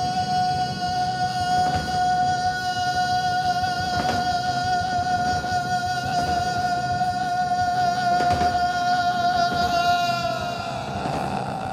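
A male singer holds one very long, steady high note over the band, then lets its pitch sag and fade near the end.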